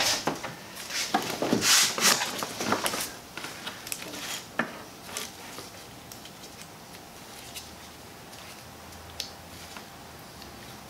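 Handling noise of gloved hands moving a fuel hose and flex fuel sensor around the engine bay: rustling, knocks and clicks, busiest in the first three seconds, then a few single clicks over a faint steady hum.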